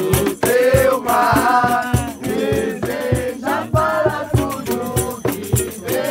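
Several voices singing along to a live jam, with hand percussion beating a quick steady rhythm and a rattling shaker.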